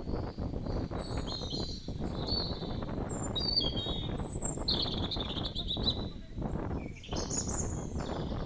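Wild birds chirping and calling in short high phrases, some sliding up and down in pitch, over a steady low rumbling noise.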